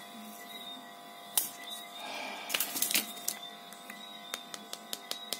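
Small sharp clicks and taps from a plastic-bodied smartphone being handled, thickest near the end, with a brief rustle about two seconds in, over a steady background hum.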